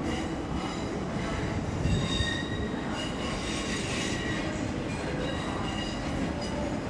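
A train moving over station track with its wheels squealing: several high squeal tones come and go over a steady rumble.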